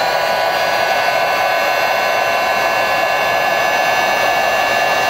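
Heat gun running steadily, blowing hot air to shrink heat-shrink tubing over a coax cable: a constant rush of air with a steady fan whine.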